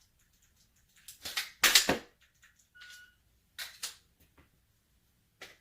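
Dry-fire handling of a Glock 34 Gen 5 pistol: a burst of rustling and knocking about a second in, a short electronic beep near the middle, then a few sharp metallic clicks.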